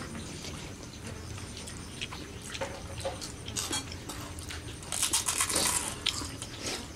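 Scattered small clicks and taps of spoons on plates and bowls while people eat, over a steady low hum, with a brief hissing noise about five seconds in.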